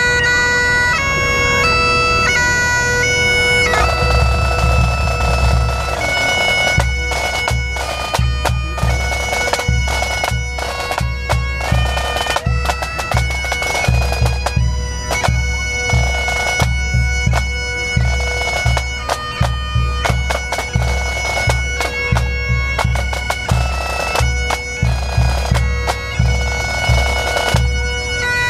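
A pipe band playing: bagpipes sound a melody over their steady drone, and the drums join about four seconds in with a driving rhythm under the pipes.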